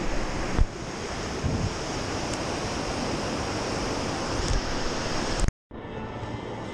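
Water rushing over the rocks of a river dam's spillway, with wind buffeting the microphone and a thump less than a second in. About five and a half seconds in the sound cuts out briefly and comes back quieter.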